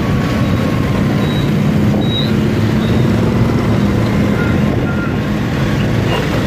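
Steady motorbike engine hum and road noise while riding in heavy motorbike traffic, loud and even throughout.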